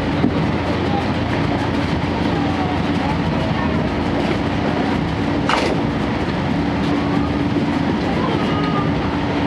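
Running noise inside a 12-series passenger coach on the move: a steady rumble of wheels on rail over a constant hum from the coach's diesel generator engine. One brief sharp click about five and a half seconds in.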